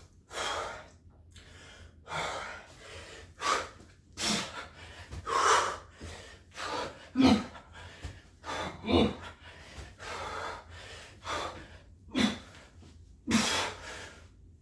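A man breathing hard and fast while doing burpees, with heavy gasping breaths about once a second, some of them voiced like a grunt.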